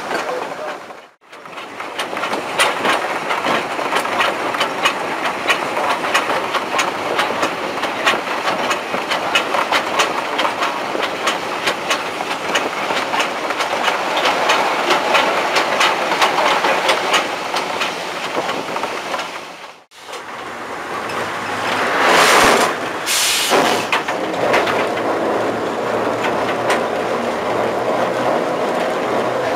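Class 05 diesel shunter D2565 on the move: a steady run of wheel clicks over the rail joints under the engine's running noise. The sound cuts out briefly twice, once near the start and once about two-thirds through. After the second break there is a steadier engine note, and a loud rushing noise lasts a second or two.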